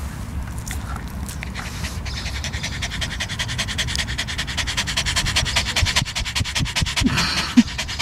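Small Maltese-Yorkshire terrier mix panting fast and hard close to the microphone, out of breath from chasing a ball. The panting starts about two seconds in and grows louder, over a low rumble of wind on the microphone.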